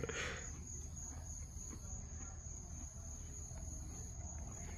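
Crickets trilling steadily in one constant high-pitched tone, over a low steady hum.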